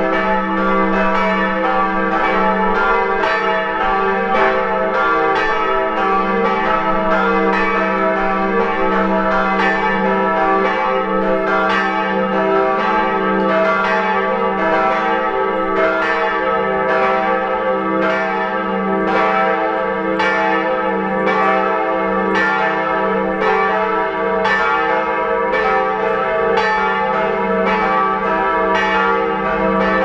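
Full peal of the four new bronze church bells cast by the Perner foundry in Passau, all ringing together. Strikes overlap in a steady stream over a sustained deep hum.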